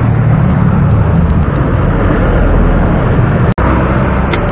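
Steady close-by road traffic with a low motor-vehicle engine drone, strongest in the first second and a half. The sound cuts out for an instant about three and a half seconds in.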